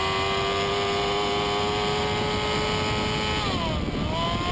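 Superbike engine at high revs, heard from the bike. Its note holds steady and climbs slowly, then dips sharply about three and a half seconds in and rises again.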